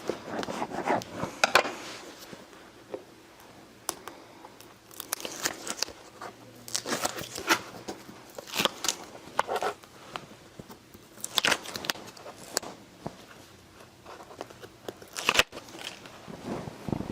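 Paper and cardstock being handled and burnished by hand: irregular rubbing, crinkling and crackling, as double-sided tape is pressed down on a notepad.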